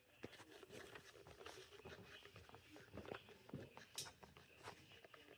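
Near silence: faint room tone with scattered small clicks and ticks.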